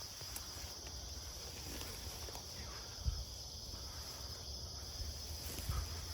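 Insects trilling steadily in a continuous high chorus, over a low rumble, with a thump about three seconds in.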